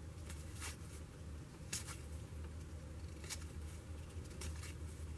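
Trading cards being leafed through by hand: a handful of short, soft swishes of card stock sliding over card stock, spaced irregularly, over a low steady hum.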